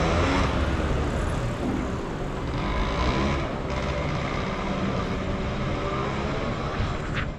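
Road-vehicle engine running close by in city traffic, its pitch gliding up and down as it moves off, with a brief high squeal near the end.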